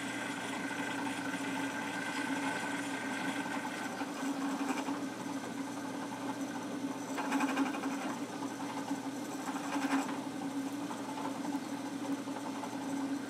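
Drill press motor running steadily while a small bit is plunged again and again into a maple and mahogany cutting board. The cutting gets briefly louder a few times, near the middle and again about three-quarters of the way through.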